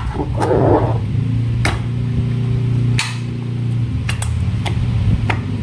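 Slime and rubber balloons being handled, with several sharp clicky snaps over a low buzzing drone that holds for a couple of seconds in the middle.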